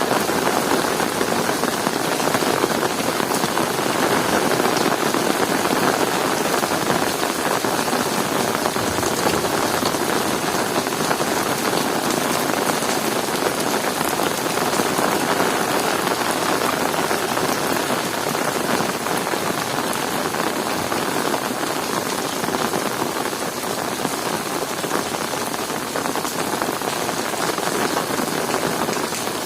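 Heavy rain falling steadily and pattering on surfaces, a dense even hiss without breaks.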